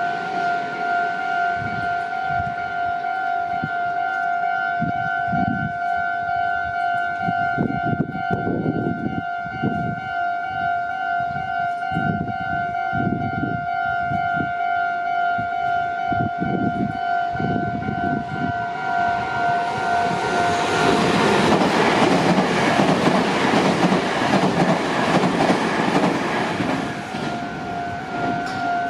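Japanese railroad crossing's electronic warning bell sounding its steady, rapidly repeating two-note tone, the 'kan-kan' of an active crossing. Under it a train rumbles with uneven thumps over the first two-thirds, then a louder train rushes past near the end.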